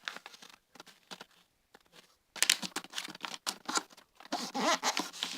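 A sheet of A4 paper rustling and crinkling in short irregular bursts as it is folded and creased by hand. The bursts are sparse at first and grow busier and louder about halfway through.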